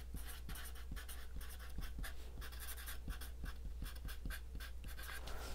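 Sharpie fine-point permanent marker writing on paper: the felt tip scratching across the sheet in many short strokes as a word is lettered out.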